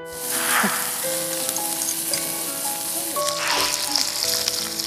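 Meat sizzling loudly on a hot grill pan: a steady high frying hiss that swells twice.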